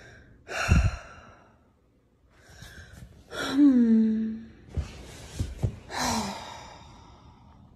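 A woman sighing heavily three times. The middle sigh is the loudest and longest, voiced and falling in pitch like a drawn-out groan. These are exaggerated, attention-seeking sighs of mock sadness.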